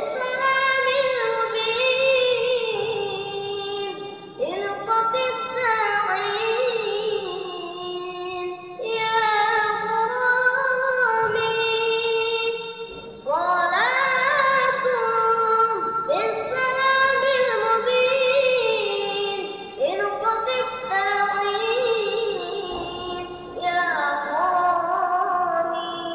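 A boy singing sholawat, Islamic devotional song, solo in a high child's voice. He sings long, wavering phrases with brief pauses between them every few seconds.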